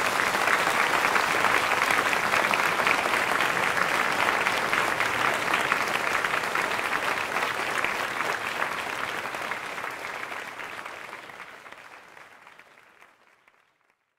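Audience applauding: dense, even clapping that holds steady, then dies away gradually over the last few seconds.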